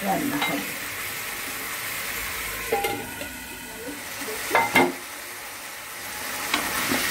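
Chicken pieces sizzling as they fry in oil in a wok, with a steady frying hiss. A couple of sharp metal knocks against the pan about four and a half seconds in.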